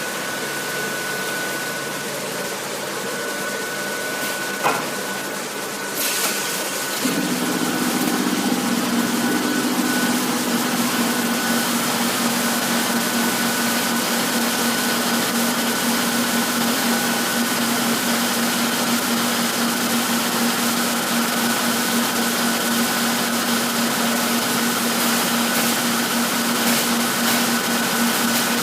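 High-frequency PVC tarpaulin welding machine running with a steady hum and a thin high whine. There is a click about five seconds in, and then a louder, lower machine hum starts about seven seconds in and holds steady.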